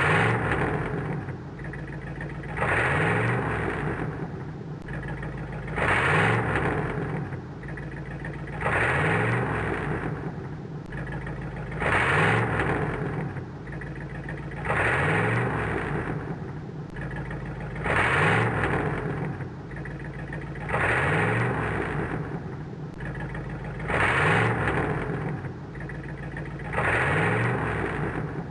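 Car engine revving up in repeated surges, each rising in pitch for about a second and then falling back, about every three seconds.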